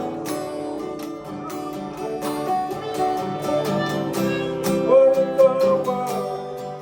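Live song on acoustic guitar, the strings plucked and strummed, with a voice singing a wavering melody line over it.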